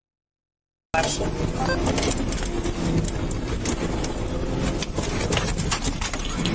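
Dead silence for about a second, then the audio cuts in abruptly on steady vehicle noise: a low rumble of a moving car with frequent clicks and rattles over it.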